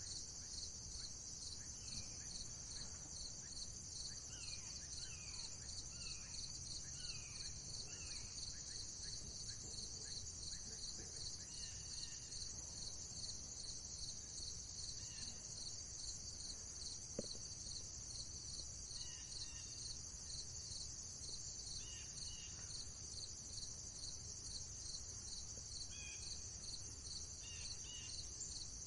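Crickets chirping in a steady chorus of rapid, even pulses, with a few faint bird calls: a run of short falling notes about 4 to 8 seconds in and scattered single calls later. A single soft click comes about halfway through.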